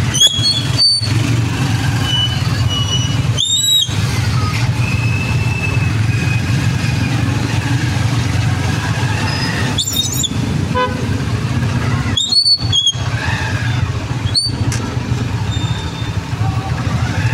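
Street traffic: a steady low engine rumble from motorcycles, tricycles and a bus, broken several times by very short high-pitched beeps.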